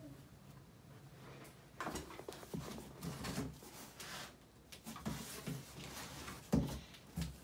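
Faint handling sounds as a hand reaches into a cardboard box and feels an apple on a wooden table: rustling and soft knocks, with one sharper knock near the end.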